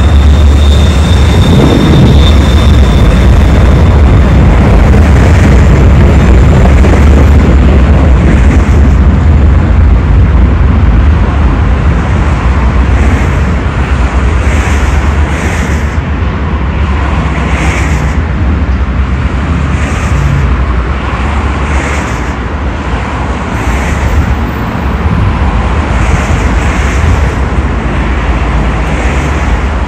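Astra Imperio Metropolitan tram running along the track: a loud, steady low rumble that eases slightly about a third of the way in, with short high hisses recurring about once a second from then on.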